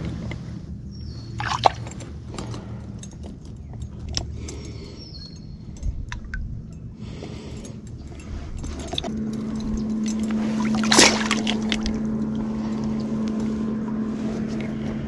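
Shallow water sloshing and splashing around a wading angler's legs and hands as a crappie is landed and handled, with sharp splashes about a second and a half in and again near eleven seconds. A steady low hum runs underneath and grows louder from about nine seconds in.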